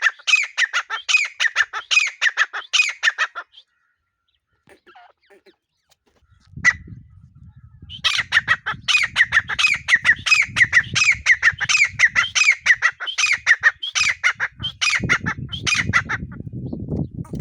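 Grey francolin (desi teetar) calling in rapid runs of repeated notes. The calling stops after about three and a half seconds and starts again about eight seconds in, running on to the end. A low rumbling noise sits under the second half and is loudest near the end.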